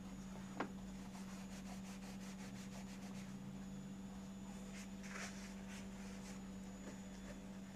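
Faint rubbing and handling noises, a sharp click about half a second in and a run of light strokes in the first few seconds, over a steady low hum.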